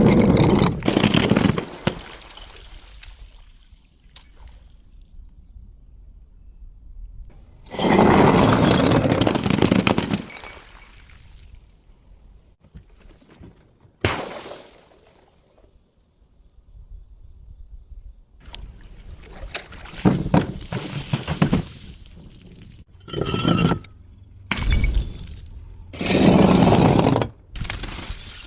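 Glass bottles breaking and being crushed, in about seven separate loud crunching bursts with short pauses between them.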